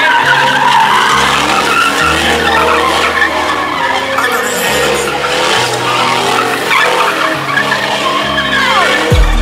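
A car doing donuts: its tyres squeal and skid continuously, in wavering pitches. Music with a stepping bass line plays underneath.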